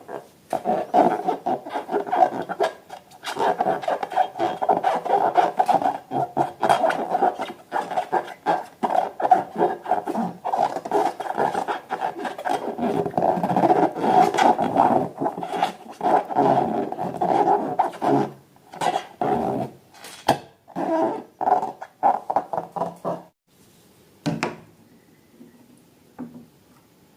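Hands working slime and rubber balloons: a long, dense run of rubbing and crackling sounds that stops about 23 seconds in, leaving a few scattered clicks.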